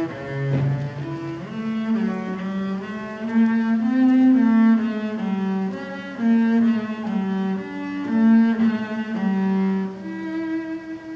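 Double bass played with a bow, a slow line of single sustained notes, ending on one long held note.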